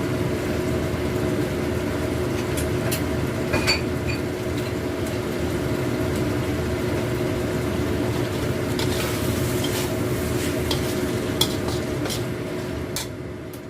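Salted squid and tempeh stir-fry sizzling in a pan as it is stirred, with scattered clicks of the spatula against the pan over a steady hum. The sound fades away near the end.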